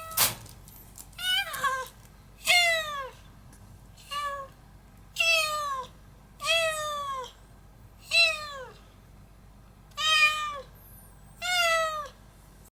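Cat meowing repeatedly: about eight meows roughly a second and a half apart, each falling in pitch. A sharp click right at the start.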